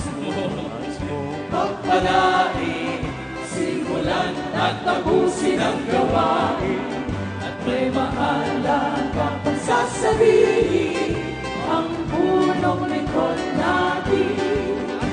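A choir singing a Tagalog gospel song over instrumental backing.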